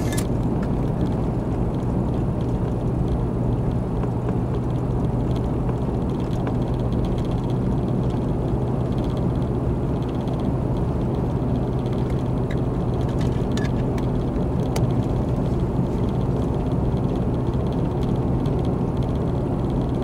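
Steady engine and road noise of a car driving at highway speed, heard from inside the cabin, with a constant low hum. There are a few faint clicks near the start and again a little past the middle.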